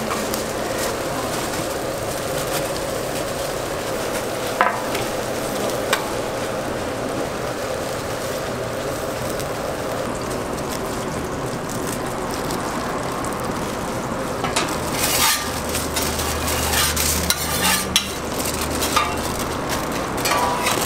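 Flat-top griddle sizzling steadily under frying eggs and burger patties. From about two-thirds of the way through, aluminium foil crackles and crinkles as it is handled and folded around a burger.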